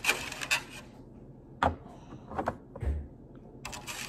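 Groceries being handled and put away: a short rustle of packaging, a few light clicks and knocks, one dull thump about three seconds in, then more rustling near the end.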